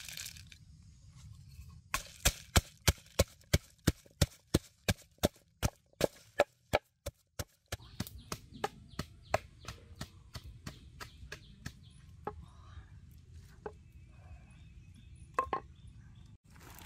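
Wooden pestle pounding lemongrass, garlic and salt in a wooden mortar, about three sharp knocks a second, starting about two seconds in and growing fainter until they stop after about five seconds. Then come softer scattered taps and one louder knock near the end.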